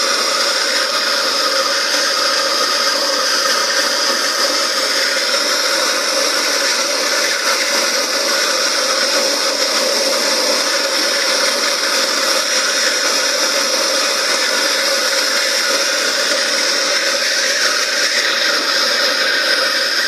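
Handheld gas torch burning with a steady hiss as its flame heats the copper suction pipe joint at a fridge compressor, soldering the pipe on.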